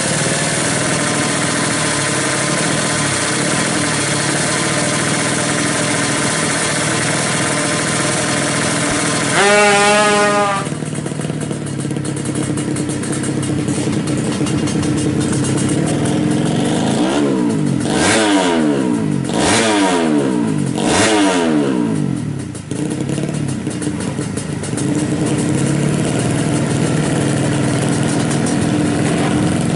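A tuned 350cc Ninja-based race motorcycle engine running. About ten seconds in it gives one short, loud rev. Later it gives three quick throttle blips, each rising and falling in pitch.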